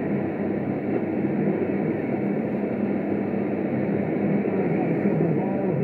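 CB radio receiving AM on channel 6 (27.025 MHz), its speaker giving out steady band noise and static with a faint low hum under it.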